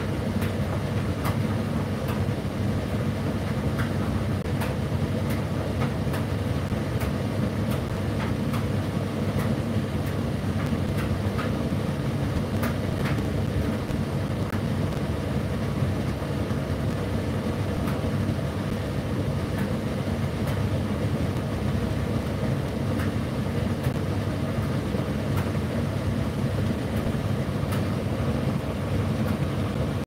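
Indesit IDC8T3 condenser tumble dryer running: a steady hum from its motor and turning drum, with scattered light clicks throughout.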